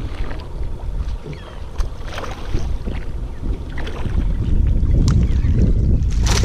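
Wind buffeting the microphone, as a low rumble that gets stronger about four and a half seconds in, with scattered light clicks and knocks.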